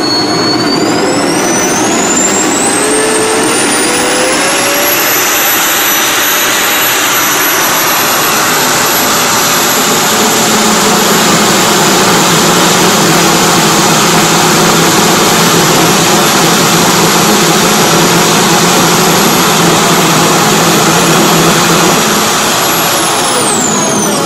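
Homemade hybrid jet thruster, a 3D-printed compressor spun by an electric motor feeding propane combustion in a stainless steel water-bottle combustor. It spools up with a rising whine over the first few seconds, then runs steadily with a high whine over the roar of the burn. A deeper rumble joins about ten seconds in, and near the end the whine falls as it spools down.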